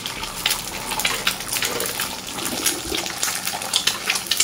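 An egg frying in plenty of hot oil in a wok: the oil sizzles steadily with many quick crackling pops.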